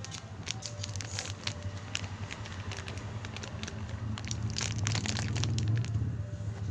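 Plastic bag crinkling and crackling as a hand squeezes and kneads the cornstarch inside it, over a low steady hum.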